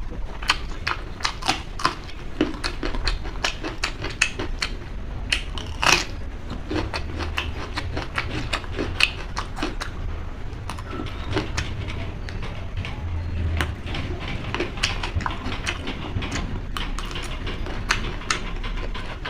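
Close-up eating sounds: a mouth chewing and smacking food, giving many irregular wet clicks, with a louder one about six seconds in, over a low steady hum.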